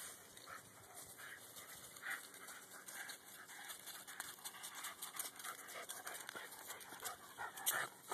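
Husky puppy panting in quick, faint breaths, over dry leaves crackling underfoot, with a louder burst as it comes close near the end.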